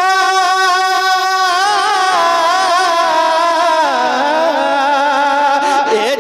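A man singing a naat unaccompanied, holding long notes with a fast vibrato. The melody steps down in pitch about two and four seconds in.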